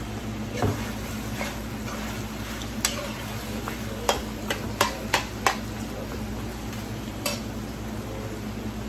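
Metal spoon stirring chicken feet in a sizzling skillet, knocking against the pan several times, most of them in a quick run between about four and five and a half seconds in, over a steady hiss.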